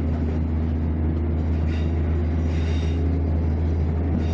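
KiHa 54 diesel railcar running along the line, heard from inside its rear driver's cab: a steady low engine drone with running noise, and a few brief higher rattles.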